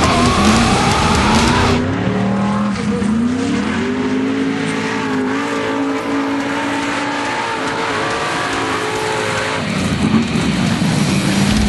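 Formula off-road buggy's engine revving hard, its pitch climbing over the first couple of seconds, then held high and wavering under load for several seconds before turning rougher near the end.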